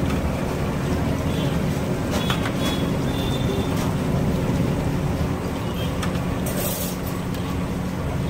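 Anda bhajias (battered boiled eggs) deep-frying in a big kadai of hot oil, bubbling and hissing over a steady low rumble, with a few light clicks of a steel slotted ladle against the pan.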